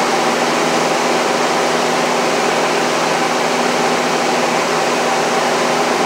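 Steady, unchanging drone of a single-engine light aircraft's piston engine and propeller, with airflow noise, as heard inside the cockpit in flight.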